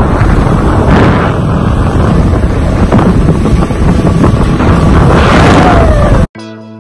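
Heavy wind noise on the microphone aboard a motorboat running at speed, with the rush of the boat and its wake underneath. It cuts off suddenly near the end, giving way to background music.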